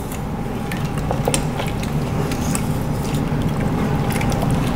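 A spoon stirring split peas, vegetables and broth in an Instant Pot's inner pot: steady liquid sloshing with scattered light clicks of the spoon against the pot.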